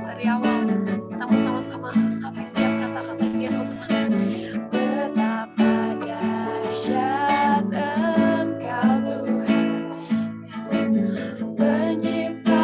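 A woman singing a worship song to strummed acoustic guitar, the chords strummed in a steady rhythm.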